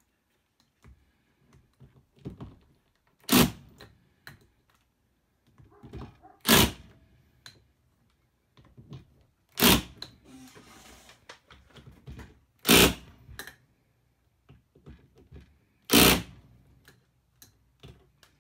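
Cordless impact wrench fired in five short bursts, about three seconds apart, giving the starter-gear bolts a final tightening; the bolts are already nearly tight. Light clicks of the socket being moved from bolt to bolt come between the bursts.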